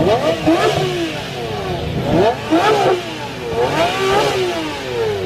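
Lamborghini Reventón's V12 engine being revved three times, each rev a quick rise and fall in pitch.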